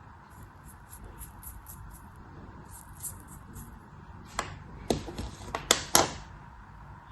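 A blade cutting through a soft crumbly block, as in kinetic sand or soap-cube ASMR. Faint crisp crackles run through the first few seconds, then a cluster of sharp snaps and crunches comes about four to six seconds in.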